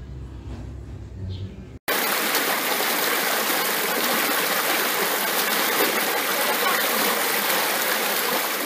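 Rocky mountain stream rushing over boulders, a steady, loud wash of water that cuts in suddenly about two seconds in, after a brief faint low rumble.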